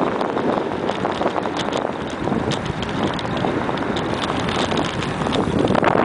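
Wind buffeting the microphone of a camera riding on a moving bicycle, with many small clicks and rattles throughout.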